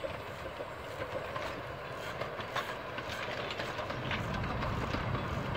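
Narrow-gauge steam train running on the line, its wheels clicking over the rails, growing louder, with a low rumble building about four seconds in.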